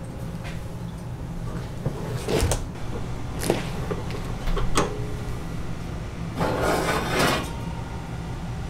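A wire oven rack clinks and scrapes as it is slid into a small metal oven cabinet, and the oven door is swung shut. There are a few sharp metal clicks and a longer rattle near the end, over a steady low hum.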